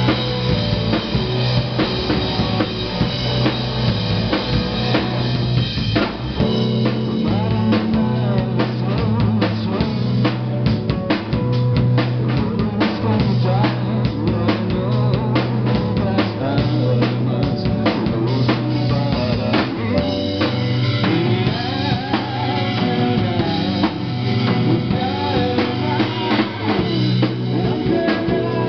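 Live amplified rock band playing: electric guitar and bass over a drum kit keeping a steady beat. About six seconds in the drumming turns busier and sharper.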